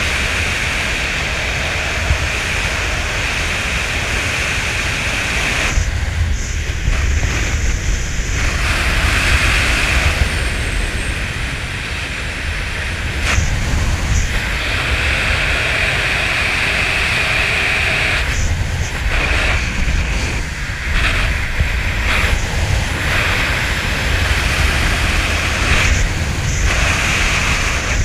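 Wind rushing over a GoPro's microphone during a parachute descent under canopy: a loud, steady roar whose hiss swells and fades every few seconds.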